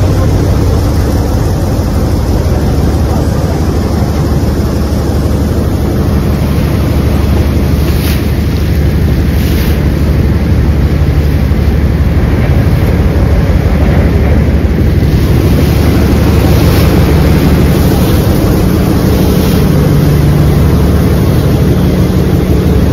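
Engine of the boat that pushes the old ferry, running steadily under load with a loud low drone, over the rush of water along the hull. Gusts of wind hit the microphone now and then.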